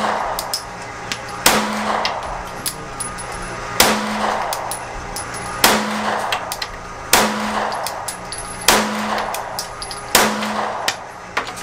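Rost Martin RM1C 9mm pistol fired six times in slow, aimed single shots, about one and a half to two seconds apart, each shot with a short echo. Lighter clicks and clinks come between the shots.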